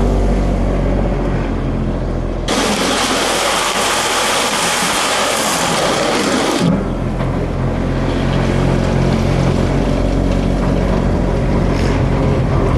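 Avant compact loader's engine running steadily as it drives, a cutting edge of UHMW plastic riding under it. From about two and a half seconds in to nearly seven seconds, a loud, even rushing noise takes over and then stops abruptly.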